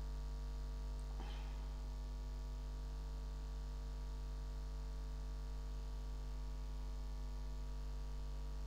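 Steady electrical mains hum with no speech, and a faint brief click and rustle about a second in.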